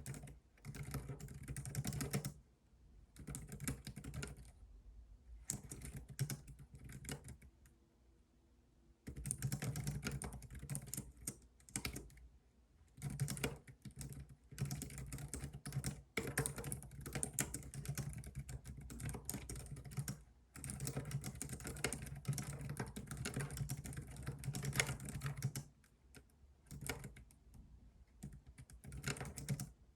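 Typing on a computer keyboard in quick bursts of key clicks, with short pauses between runs of typing.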